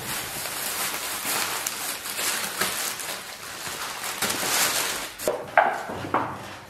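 Thin plastic bag rustling and crinkling as it is pulled off a whole raw sheep carcass, with a few sharper knocks about five seconds in as the carcass is shifted on a steel table.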